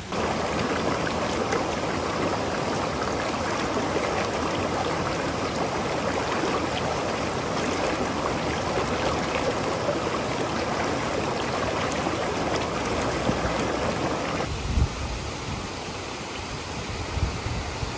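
Shallow rocky mountain stream rushing and splashing over stones, a steady dense hiss. About fifteen seconds in it cuts to a quieter forest ambience, with the rustle of trees and irregular low rumbling gusts of wind.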